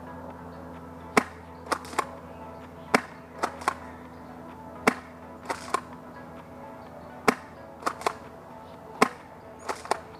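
A Crosman pump-action tri-shot airsoft shotgun fired five times at an even pace, about one sharp crack every two seconds. Each shot is followed by two quieter clacks.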